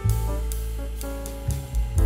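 Background music with held notes over a low bass line and drum hits.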